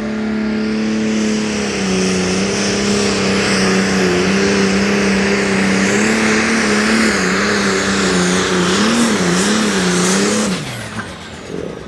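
Turbocharged diesel engine of a blue New Holland Pro Stock pulling tractor at full throttle, pulling the sled. It holds a steady high-revving note that wavers near the end, then the revs fall away about ten and a half seconds in.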